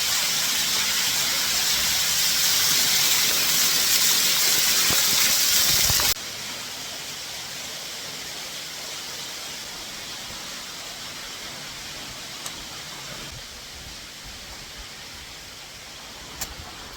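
Steady rushing of falling water, loud for about six seconds, then cutting suddenly to a quieter, steady rush of water.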